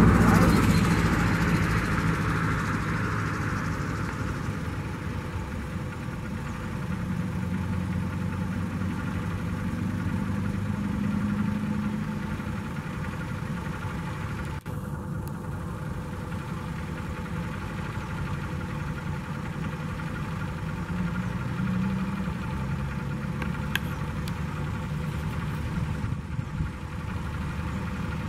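Boeing 737-700's CFM56-7B turbofans running at taxi idle as the airliner taxis slowly. The engine noise is loudest at first, while the jet faces the microphone, and eases over the first few seconds as it turns away, then holds steady as a low hum.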